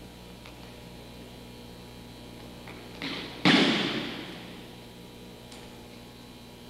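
An aikido partner's breakfall: a small thump about three seconds in, then a loud thud of a body hitting the mat that dies away over about a second. A steady hum from the old recording runs underneath.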